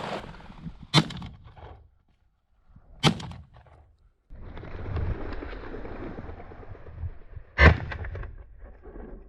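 Three sharp impacts, about a second in, about three seconds in and the loudest near the end, over wind noise on the microphone.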